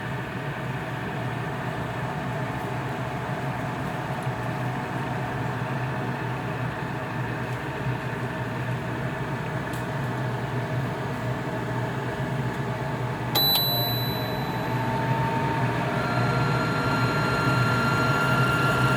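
950 CFM range hood exhaust fan blowing steadily on its lowest speed; about two-thirds of the way in a short beep marks the switch to the second speed, the airflow grows louder with a brief rising pitch as the motor speeds up, and a few seconds later a steady high-pitched whine sets in over the air rush. The owner likens the whine to an alternator whine and suspects a defective fan bearing.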